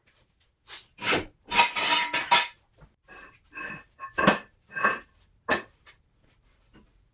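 Metal tools and car parts clanking against each other, a string of about ten separate knocks with a ringing metallic tone, spread over about five seconds.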